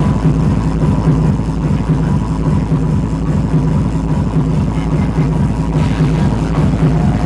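Loud techno playing over a club sound system, a heavy bass pattern repeating evenly with a thin steady tone high above it.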